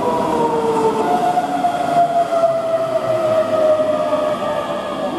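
Keihan 9000-series electric train running slowly past the platform, its motor whine falling in pitch as it slows.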